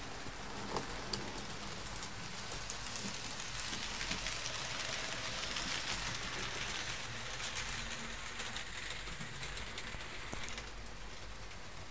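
Fleischmann H0 model trains running on the layout's track: a steady crackling hiss of small wheels on rails, with many fine clicks. It swells in the middle and drops back near the end.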